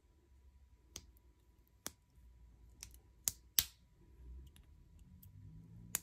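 Victorinox Swiss Army knife with ribbed aluminium scales having its blades and tools pulled open and snapped into place: about six sharp metallic clicks at uneven intervals, the loudest two close together about three and a half seconds in.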